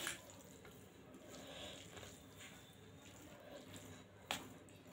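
Faint, wet chewing and mouth sounds of someone eating spicy instant noodles, with one sharp click about four seconds in.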